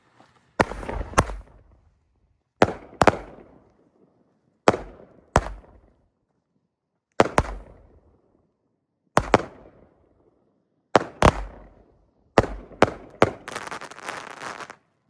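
Golden Rush Fireworks' Giddy Up 9-shot cake firing: sharp bangs about every two seconds, often two close together as a shot launches and breaks. It ends in a dense burst of crackling.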